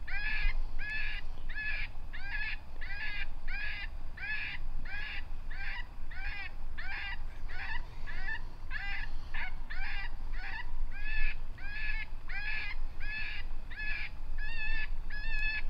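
Predator call playing a distress sound to lure coyotes: a high squealing cry repeated very evenly a little over twice a second, its tone shifting slightly near the end.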